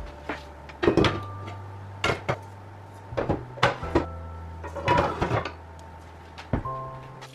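Cookware being put away in a kitchen cabinet: pans and pot lids knocking and clattering against each other and the shelves in a string of sharp knocks, then the cabinet door shut with a knock near the end.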